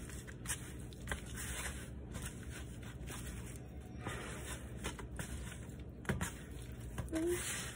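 Hands rubbing and squishing seasoning into raw chicken tenderloins on a plate: soft, faint rubbing with a few light clicks.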